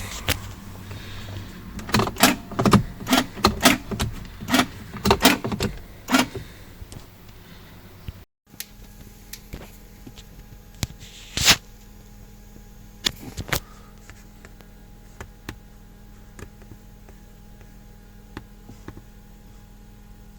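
A quick run of sharp clicks and knocks for about four seconds, then a few single clicks spaced out over a faint steady hum.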